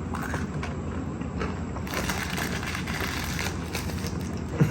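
Steady low background hum with scattered crackling and clicks, and one sharp knock near the end.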